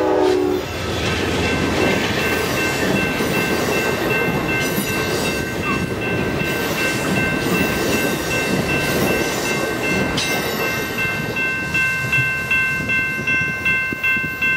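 Amtrak passenger train passing behind a GE P42 Genesis diesel. The tail of the locomotive's horn chord ends about half a second in, then the bilevel Superliner cars rumble past, their wheels clicking over the rail. A high ringing tone sounds through the pass and carries on after the cars have gone, pulsing about twice a second near the end.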